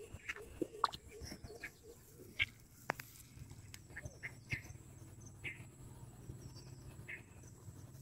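Faint outdoor ambience of scattered short chirps and clicks from small animals. A low steady hum sets in about two and a half seconds in.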